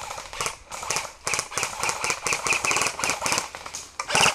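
Airsoft rifle firing on full auto in several rapid bursts: a fast rattle of sharp clicking shots with short pauses between bursts, the loudest burst near the end.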